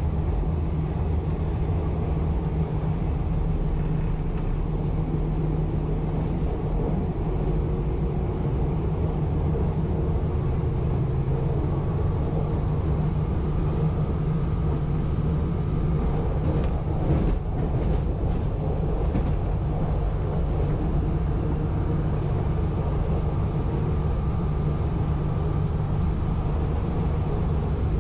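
1920s CPH railmotor running along the line: a steady engine drone over wheel-on-rail rumble, with a few short sharp clicks about two-thirds of the way through.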